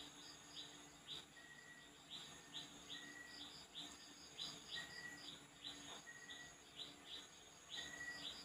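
Faint chirping of wildlife: short chirps repeating about twice a second over a fainter, steady, fast pulsing.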